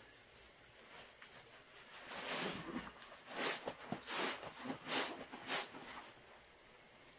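Rubber-gloved hands squeezing and scooping thick soap suds with a sponge in a plastic tub: a run of about five short wet squishes between two and six seconds in.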